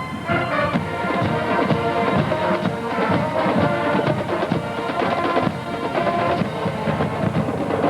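Marching band playing: held brass notes over a steady run of drum strokes.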